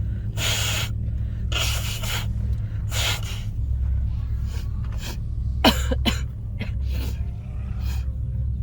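A person's sneeze fit: three gasping in-breaths in the first few seconds build up to a sharp, loud sneeze about two-thirds of the way in, followed by a few smaller sneezes or breaths. A steady low hum runs underneath.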